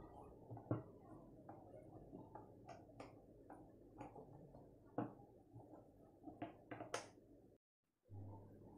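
Faint, irregular clicks and rubbing as the plastic side handle of a Bosch GWS 600 angle grinder is turned by hand into the threaded hole in the grinder's gear head.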